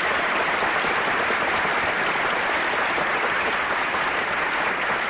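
Studio audience applauding steadily, heard on an old radio broadcast recording.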